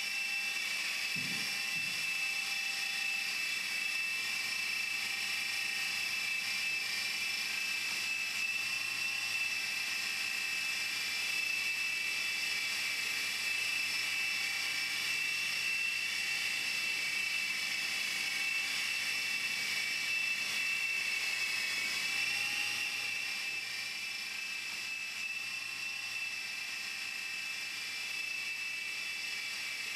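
Art-Tech RedWolf radio-controlled helicopter in flight: a steady high-pitched whine from its motor and spinning rotors, the pitch wavering slightly as it manoeuvres, a little quieter for the last several seconds.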